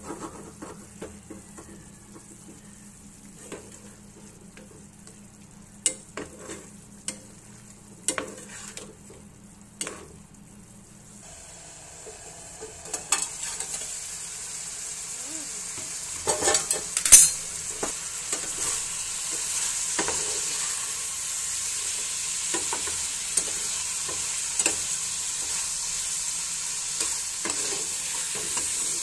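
Mutton stew sizzling in a cast-iron skillet, with a metal spatula stirring, scraping and tapping against the pan. The sizzle turns into a louder, steady hiss about a third of the way in, and there are a few sharp metal clanks near the middle.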